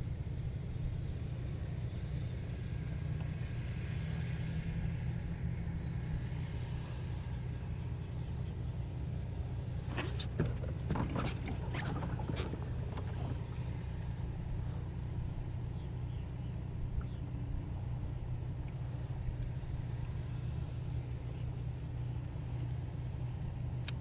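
A steady low motor drone runs throughout. A short run of sharp clicks and knocks comes about ten seconds in.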